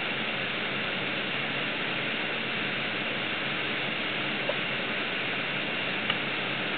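Steady rush of flowing river water, with a couple of faint ticks in the second half.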